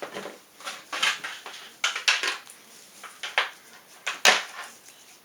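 Hands handling PC components and cables: a run of irregular clicks, taps and short scrapes of plastic and metal, the sharpest about four seconds in.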